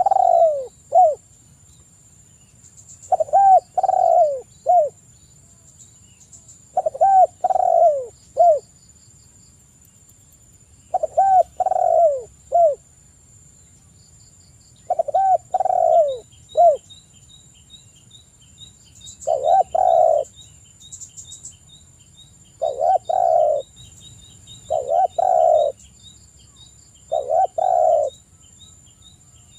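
Spotted dove (tekukur) cooing: repeated phrases of three-note coos, about every four seconds at first, then coming faster, about every two seconds, in the second half.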